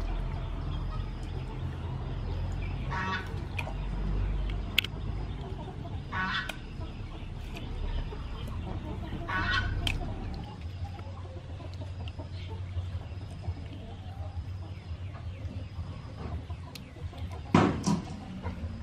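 Chickens clucking, with three short calls a few seconds apart, over the wet handling of squid being skinned in a basin of water. A sudden sharp sound near the end is the loudest moment.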